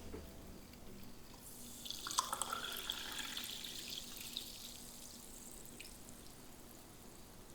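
Liquid pouring or running for about three seconds, starting about a second and a half in, with a faint rising tone, then quiet room noise.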